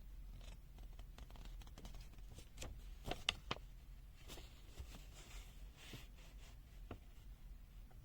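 Faint handling noises of a paper user manual: scattered small clicks, a few louder ones about three seconds in, and brief rustles as pages are turned.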